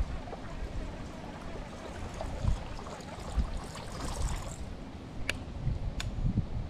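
Water splashing as a topwater lure is worked across the surface, with a bigger splash about four seconds in, over a low rumble of wind on the microphone. Two sharp clicks come near the end.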